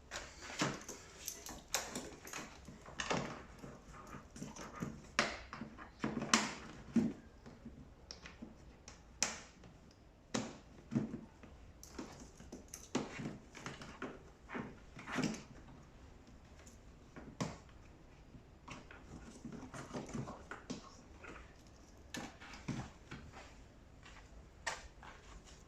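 Irregular clicks, knocks and rustles of plastic tumble-dryer parts being handled as pipes are pressed into their channels, thinning out about two-thirds of the way through.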